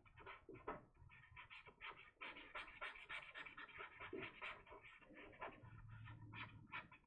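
Faint scratching of a Tombow brush pen's fibre tip dragged across drawing paper in quick, repeated short strokes, several a second.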